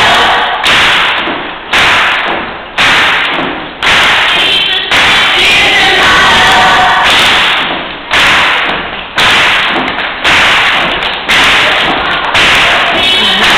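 Live gospel choir performance with band, recorded so loud that it is overloaded: a heavy beat thumps about once a second and the level sinks after each hit, with the choir's singing faint underneath.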